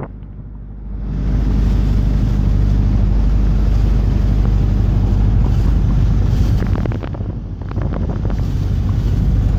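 A taxi boat's engine runs steadily under way, a low even hum, with wind rumbling on the microphone and water rushing past the hull. It comes up about a second in and dips for a moment about seven seconds in.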